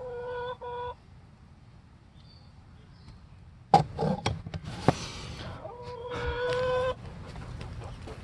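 Chickens calling: a short, drawn-out squawk at the start and a longer one about six seconds in. Between them come several sharp knocks and a brief scuffle.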